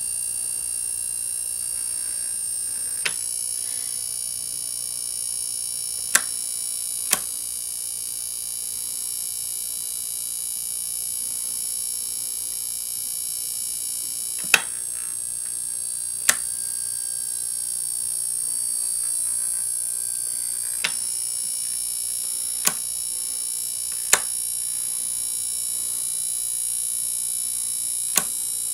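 High-voltage supply driving a Crookes railway (paddle wheel) tube, giving a steady high-pitched electrical whine made of several tones, with a sharp click every few seconds, about nine in all.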